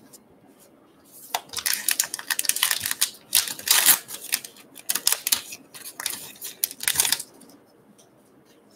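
Baseball card pack wrapper being torn open and crinkled by hand: a rapid, dense crackle of rustles that starts a little over a second in and stops about a second and a half before the end.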